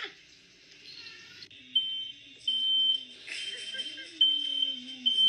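Smoke alarm going off: a high, piercing beep of one steady pitch, repeated about five times and starting a little under two seconds in.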